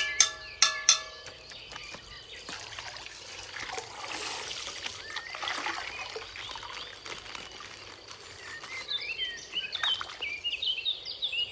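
Coloured water trickling and pouring out of a punctured plastic ice-pack bag, with a few sharp clicks of handled plastic in the first second. The pouring is strongest in the middle. Short high squeaks or chirps come near the end.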